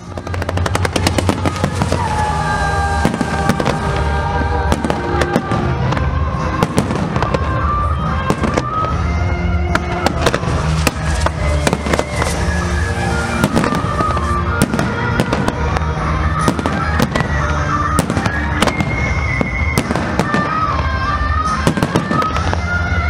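Fireworks going off in a dense run of sharp bangs and crackles, mixed with music that carries a melody over a deep steady bass.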